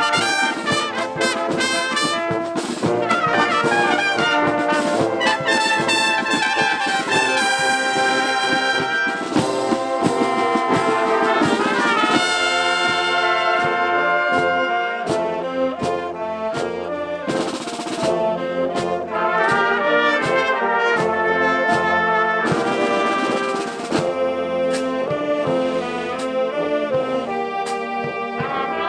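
Marching show band playing: brass chords from trumpets and sousaphones over snare drums keeping time, with the sousaphone carrying the camera close by.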